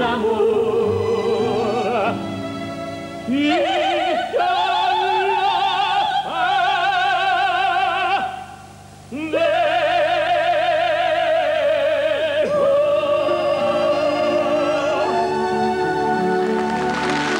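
Operetta singing with orchestra: long held notes with wide vibrato, broken by a short pause just before the middle. Applause breaks in at the very end.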